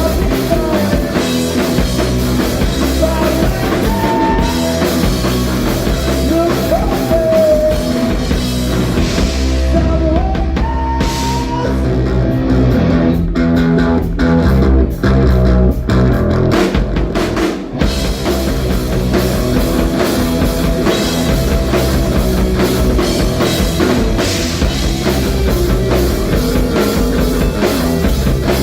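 Live band playing rock music, led by a drum kit with guitar. About a third of the way in, the cymbals and high end drop away for several seconds, leaving separate accented hits before the full band comes back in.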